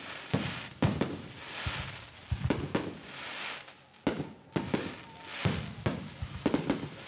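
Fireworks display: aerial shells bursting in many sharp bangs at irregular intervals, sometimes two or three in quick succession, over a steady hiss.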